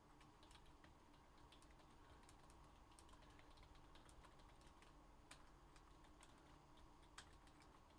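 Faint typing on a computer keyboard: irregular key clicks over a low steady hum.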